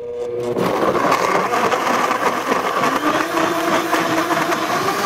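Blendtec countertop blender kicking in and running hard, churning frozen banana and frozen watermelon with non-dairy milk into a smoothie. It comes on suddenly, builds over the first second, and then runs steadily.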